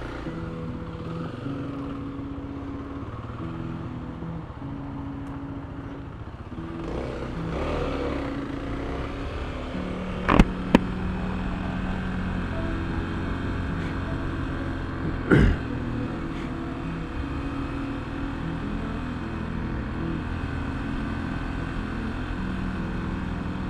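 Motorcycle engine running while riding through city streets, its pitch stepping up and down with the throttle, over road and wind noise. Two sharp knocks stand out, about ten and fifteen seconds in.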